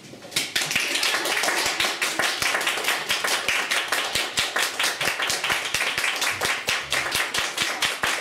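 Applause from a small audience, starting about half a second in right after the music ends, with individual hand claps distinct.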